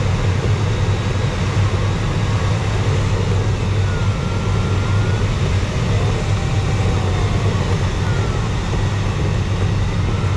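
Steady rush of airflow around the closed canopy of a 1977 Glaser-Dirks DG-200 sailplane in flight, heavy in the low end. Faint wavering tones rise and fall now and then.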